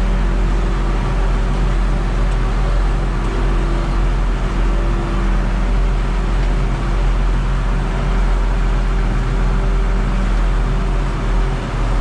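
Steady, unbroken drone of farm machinery engines running under load while corn is chopped for silage and blown into a wagon, heard from inside a tractor cab.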